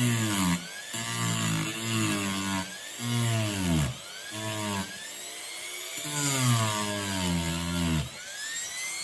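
Dremel rotary tool with a grinding wheel grinding down the sharp end of a razor's pivot pin, in several short passes, its pitch sagging each time it bears on the metal. Near the end it is lifted off and winds down.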